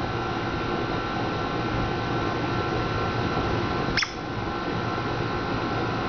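Steady whirring background noise like a fan or air-conditioning unit, with one short high chirp about four seconds in.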